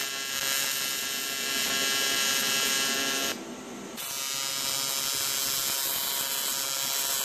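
AC TIG welding arc on aluminum buzzing steadily while it is manually pulsed with the foot pedal. The buzz drops away for about half a second past the middle, then comes back at full strength.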